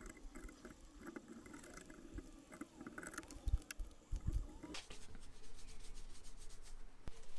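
Masking tape being peeled and torn off a polished steel hammer head, an irregular crackling with a few dull knocks from handling. About five seconds in it gives way to a softer, steady rubbing of cloth on the head.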